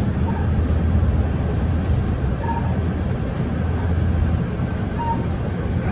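Mercedes-Benz Citaro city bus under way, its engine giving a steady low drone that eases briefly near the end. Three short faint squeaks come through about a second or two apart.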